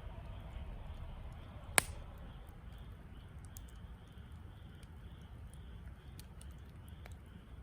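Wood campfire burning: a steady low rumble with scattered small crackles and one sharp pop about two seconds in.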